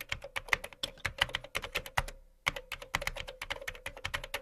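Rapid keyboard typing clicks, several a second, with a short pause about two seconds in and a faint steady hum beneath.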